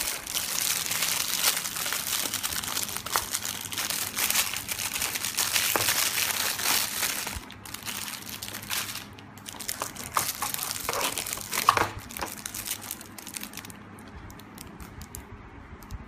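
Clear plastic bag wrapping a handheld two-way radio crinkling as it is handled and pulled off. It crackles steadily for about seven seconds, then comes in shorter, scattered crinkles with a few ticks.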